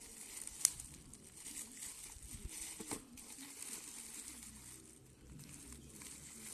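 Crinkling and rustling of something being handled, with a sharp click about half a second in and a softer knock near the middle.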